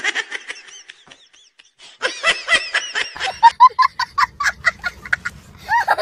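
A young child laughing hard in rapid, high-pitched bursts from about two seconds in, over a low steady hum. It is preceded by a short high-pitched sound.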